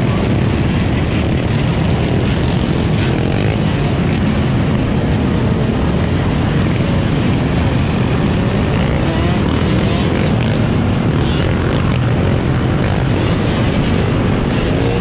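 Many dirt bike engines running together in a pack, a loud, steady, dense engine drone with occasional revs.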